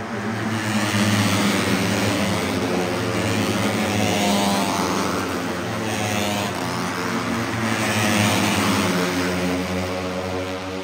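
Several Moto3 racing motorcycles, 250 cc single-cylinder four-strokes, screaming past at high revs. The sound swells and fades about three times as bikes go by, with rising whines as they accelerate.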